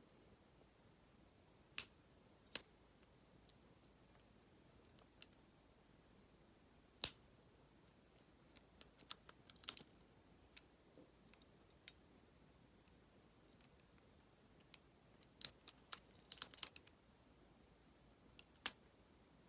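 Small sharp metal clicks and taps from lock picks and a tension wrench working in a Master Lock 410 lockout padlock, coming singly and in short clusters with gaps between.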